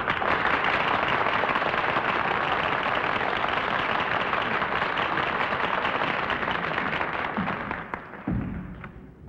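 Studio audience applauding steadily with dense clapping, fading away near the end, where a brief low thump is heard.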